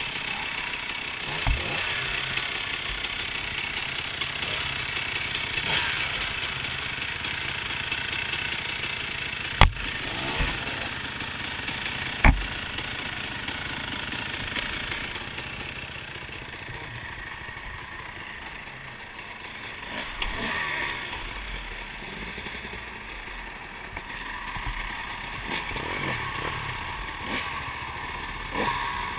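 Dirt bike engines running nearby, with rubbing and handling noise close to the microphone. There are sharp knocks about a second and a half in, and twice more about ten and twelve seconds in.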